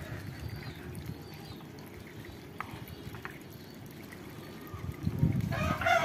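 Quiet stretch of low background noise with a few faint bird sounds, then about five and a half seconds in a rooster starts crowing, loud and carrying on past the end.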